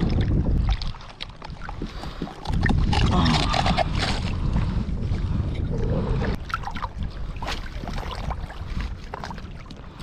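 Uneven low rumble of wind buffeting the microphone, strongest in the first second and from about two and a half to six seconds in, with scattered clicks and knocks from fishing gear being handled.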